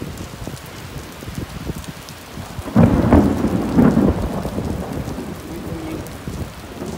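Hail and rain falling steadily on a wet, puddled asphalt street, a constant pattering hiss. About three seconds in, a loud low rumble rises over it and lasts about a second and a half.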